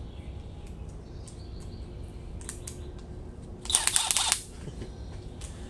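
Light metallic clicks of a bit and hex adapter being fitted into the chuck of a Milwaukee M12 cordless tool, then a short dense rattle of clicks, under a second long, a little past halfway.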